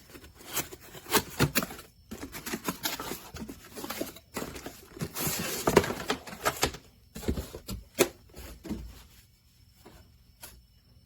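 Product packaging being opened and handled: an irregular run of clicks and knocks, with rustling and tearing of paper or plastic around the middle.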